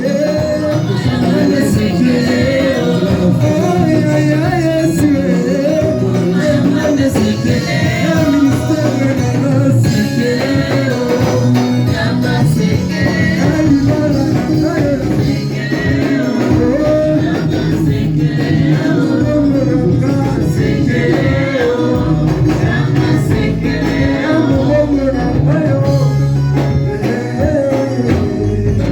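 Church worship song: singing over instrumental accompaniment with a steady low bass line.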